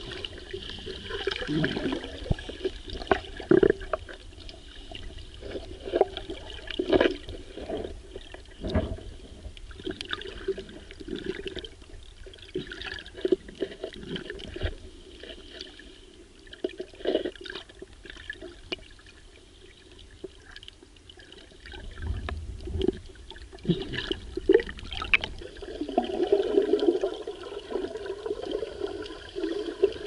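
Water sounds picked up by a camera filming underwater: a muffled wash of moving water and bubbling, with irregular pops and clicks.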